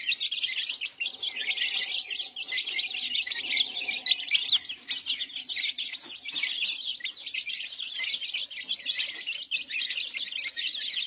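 A brood of silkie chicks peeping all at once: a constant chorus of many short, high, overlapping peeps.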